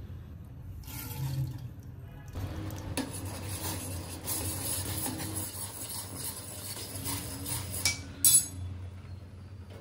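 A spoon stirring flax seeds in bubbling water in a steel saucepan, with small clinks against the pot, getting louder about two and a half seconds in. A short, loud clatter comes about eight seconds in.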